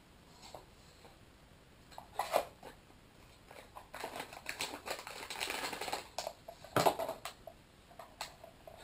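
Clear plastic bag crinkling and small parts clicking and tapping as a GPIO breakout board and ribbon cable are taken out of their packaging. A few light taps come first, then a stretch of rustling through the middle, then a couple of sharper clicks.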